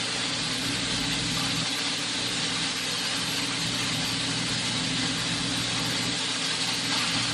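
A steady mechanical hum with an even hiss over it, like a fan running, with no break or change.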